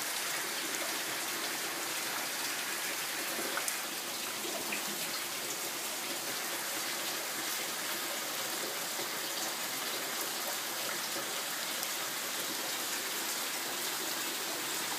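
Steady rain falling on a garden and the trees beyond it, an even hiss with no let-up.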